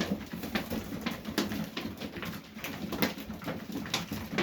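Domestic pigeons cooing, a low continuous murmur, with scattered sharp clicks and scuffs several times a second.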